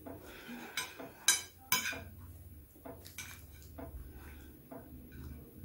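Metal spoon clinking and scraping against a ceramic plate while scooping rice: a few sharp clinks in the first two seconds, then lighter scattered taps.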